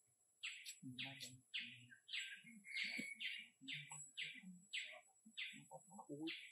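A rapid series of short high chirps, about three a second, repeated steadily for several seconds, with fainter low sounds underneath.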